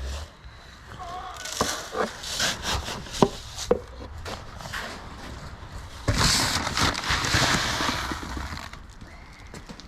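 Feed and a feed bucket being handled: a run of sharp knocks and scrapes, then from about six seconds in a couple of seconds of rushing, rattling noise as chicken feed pours out.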